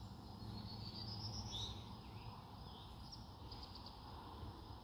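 Faint bird chirps and calls over a low, steady background of outdoor noise; no shot is fired.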